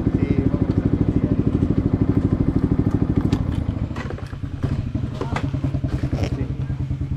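Yamaha MT15's single-cylinder engine through an SC Project full-system exhaust, running at low speed with an even, pulsing beat. About three and a half seconds in, the beat drops lower and quieter, and a few sharp clicks follow.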